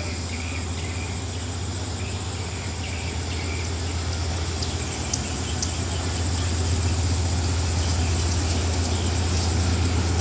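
GEA-class diesel-electric locomotive's engine running with a steady low drone as it rolls slowly toward the platform, growing louder.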